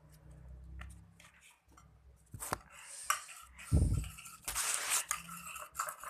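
Scattered clicks and knocks of a stirring utensil against a plastic container as liquid soap is added to the slime mix, with a dull thump about four seconds in and a brief rush of noise just after.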